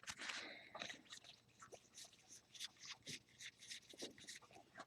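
Faint rustling and light clicks of baseball trading cards being handled and slid one by one through a stack.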